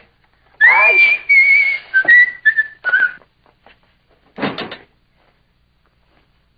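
A person whistling a short tune: a rising first note, then several held notes stepping down in pitch. After this comes a single brief sound about four and a half seconds in.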